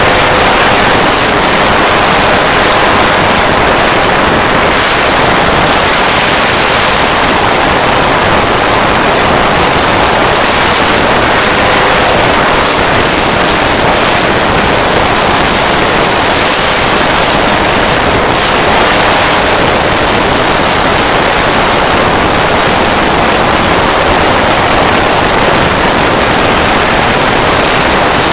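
Steady loud rushing of wind over the microphone in the open cockpit of an ultralight trike in flight, with the engine running underneath.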